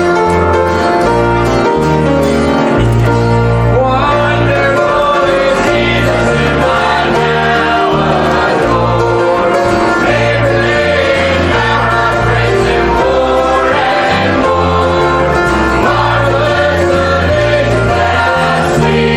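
Gospel music: a piano plays with a bass line, and group singing comes in about four seconds in.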